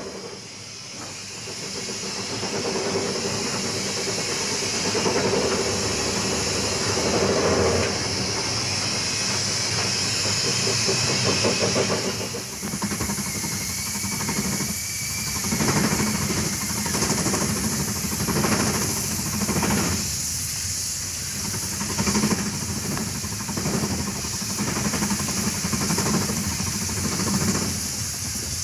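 SLM-built steam rotary snowplow (Dampfschneeschleuder) at work. First there is a steady hiss of steam with a hum, heard from inside its cab. About twelve seconds in, the sound changes to the machine heard outside clearing snow: uneven beats roughly once a second over a low steady rumble.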